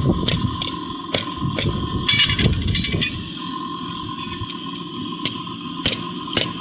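Hand hammer striking steel on an anvil in forging: a run of sharp metallic blows about three a second, a pause of about two seconds, then a few more blows near the end, over a steady hum.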